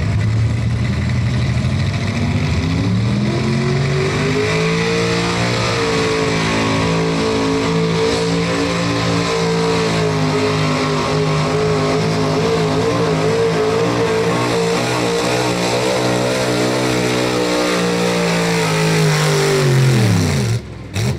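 Late-1960s Chevrolet pickup's engine at full throttle, pulling a weight-transfer sled. The revs climb over the first few seconds, hold high and wavering for about fourteen seconds under the load, then fall away steeply near the end as the pull finishes.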